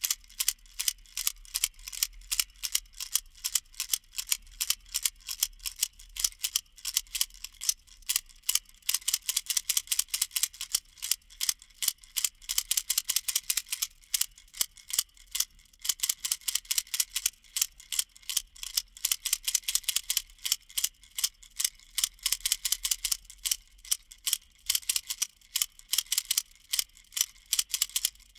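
Baby rattle shaken over and over, giving rapid runs of sharp, bright clicks with short breaks between shakes.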